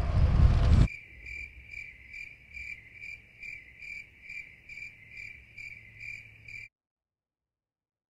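Wind buffeting the microphone for about the first second. Then an insect chirps in an even, pulsing rhythm of about two and a half chirps a second, which cuts off abruptly about a second and a half before the end.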